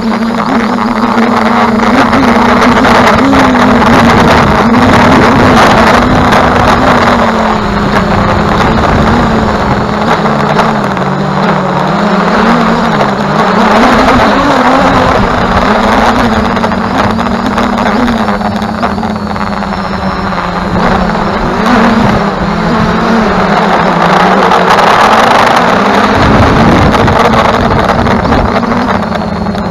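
Multirotor drone's 2212 920KV brushless motors and 9-inch propellers running in flight: a loud, steady hum whose pitch wanders up and down as the motors speed up and slow down, over a rushing noise of propeller wash and wind on the onboard microphone.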